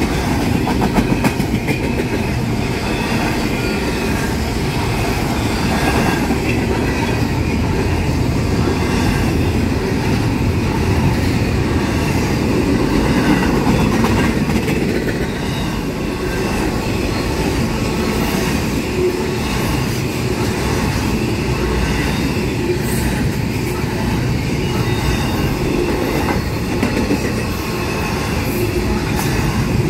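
Double-stack intermodal freight cars rolling past close by, their steel wheels running steadily over the rails.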